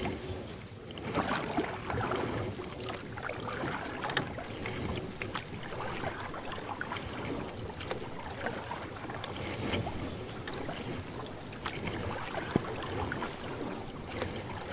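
Paddle strokes in river water: uneven splashing and dripping, with a few sharp knocks.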